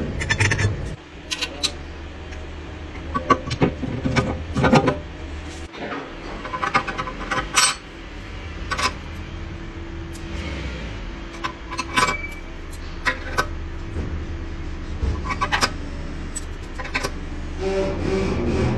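Metal automatic transmission parts clinking and clicking as a clutch drum and its steel clutch plates are handled and fitted together, in scattered irregular clinks over a low steady hum.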